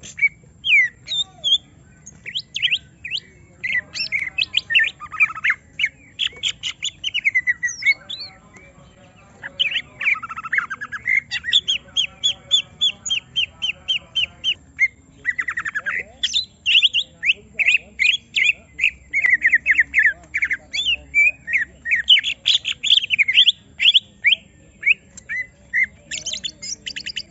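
Greater green leafbird (cucak ijo) singing in agitated, provoked song, pouring out fast runs of sharp chirps, squawks and rattling trills with hardly a break, pausing only briefly about eight seconds in. It is singing in aroused 'emosi' mode after being set near another bird, unloading its repertoire of imitated songs.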